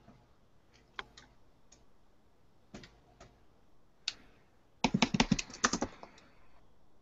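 Computer keyboard typing: a few separate keystrokes, then a quick run of about ten keystrokes about five seconds in, as a search term is typed.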